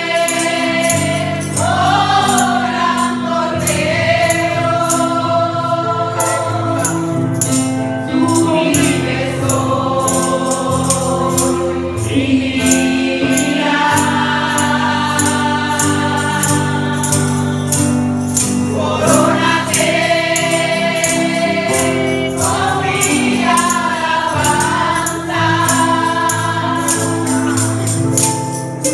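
Gospel worship song: a group singing over a band with a steady tambourine beat.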